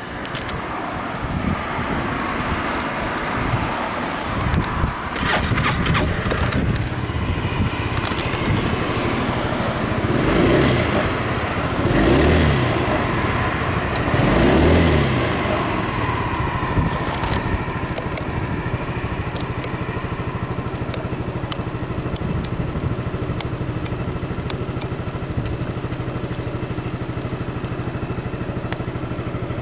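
Honda Forza MF13 scooter's single-cylinder engine idling through its stock exhaust. Three quick throttle blips come about ten, twelve and fourteen seconds in, each rising and dropping back to a steady idle.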